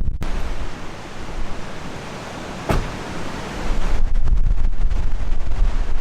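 Wind buffeting the microphone, a heavy low rumble that grows stronger about two thirds of the way through, over a steady rushing hiss, with one sharp click near the middle.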